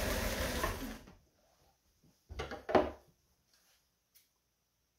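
Kenmore 158 sewing machine running on its motor, declutched to wind a bobbin, then winding down to a stop about a second in. Two sharp knocks follow a little over two seconds in, the second louder.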